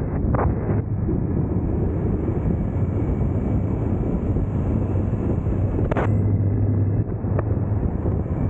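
Triumph Tiger 900 GT motorcycle riding at a steady pace: the three-cylinder engine's low drone under wind noise on the camera's microphone, with a brief sharp click about six seconds in.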